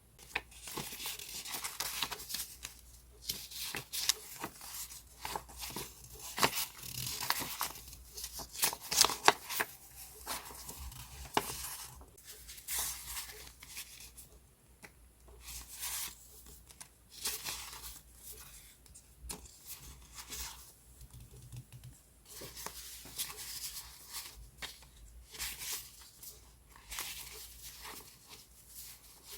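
Sheets of scrapbooking paper being handled, with irregular crisp rustling, crinkling and tearing-like strokes broken by short pauses.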